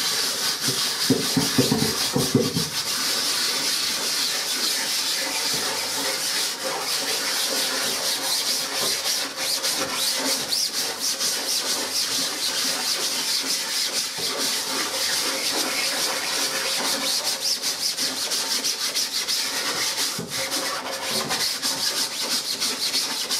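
Scrubbing sponge scrubbing bleach into the mesh of a screen-printing screen with fast, steady back-and-forth strokes, working the bleach in to break down the photo emulsion so the screen can be reclaimed.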